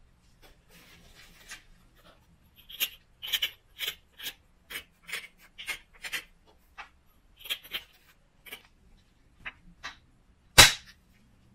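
Short scratchy strokes on the edge of an oil chert preform, about two a second, the edge being rubbed and prepared for flaking. Near the end comes one loud, sharp knock: the antler billet striking the horizontal antler punch set against the chert.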